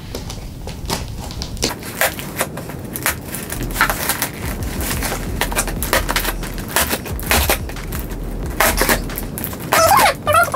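Scissors cutting through the packing tape and cardboard of a box: a run of irregular snips and crackles.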